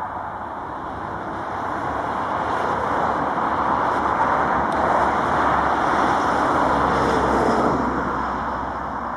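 Boeing 737-800's twin CFM56-7B turbofan engines at takeoff thrust as the jet accelerates down the runway: a loud, steady jet roar that swells to its loudest about five to seven seconds in, then begins to fade as the aircraft moves away.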